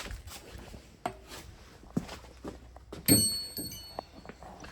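Loose metal motorcycle hardware being handled and set down: several separate knocks and clinks about a second apart. The loudest is a metallic clink a little over three seconds in that rings briefly.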